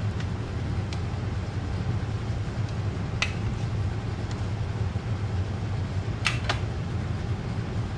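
Steady low machine hum, with a few light clicks of plastic metal-detector parts being handled, the sharpest a quick pair about six seconds in.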